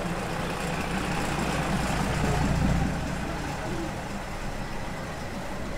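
Diesel passenger railcar rumbling past at close range, its engine and running noise growing to a peak about two and a half seconds in, then slowly fading as it moves away.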